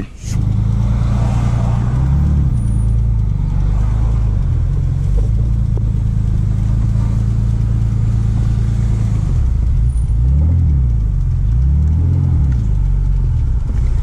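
Twin-turbo V6 engine of a Nissan 300ZX heard from inside the cabin while driving, running steadily with the revs rising and falling a few times, most clearly near the end.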